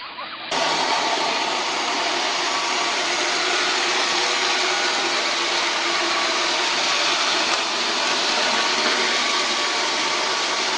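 Steady whirring of a small electric motor, beginning abruptly about half a second in.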